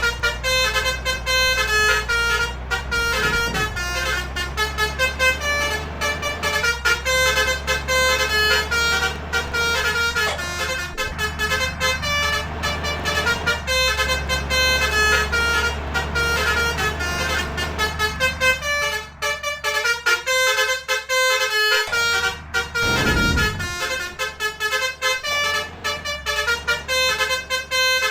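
Basuri multi-tone musical vehicle horns playing a fast 'telolet' tune of short, quickly changing notes, over a low engine rumble. The rumble fades for a few seconds about two-thirds of the way through while the horn tune carries on.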